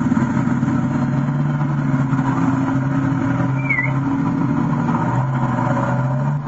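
Pickup truck engine running steadily as the truck drives past at low speed.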